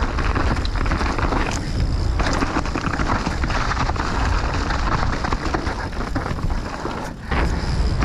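Mountain bike ridden fast along a trail: tyre noise and a rattling clatter from the bike, over a steady rush of wind on the microphone that drops briefly about seven seconds in.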